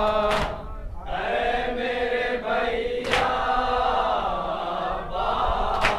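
Male voices chanting a Muharram noha (mourning lament) in unison, with long held notes, and a sharp chest-beating (matam) slap about every three seconds.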